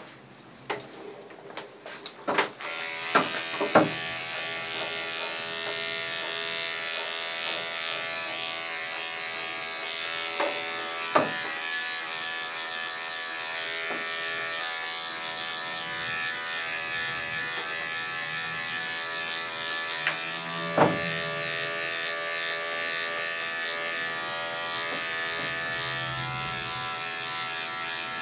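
Corded electric dog clippers start up about two and a half seconds in, then run with a steady buzz as they clip through a dog's thick coat. A few sharp knocks stand out over the buzz, the loudest in the first few seconds of clipping.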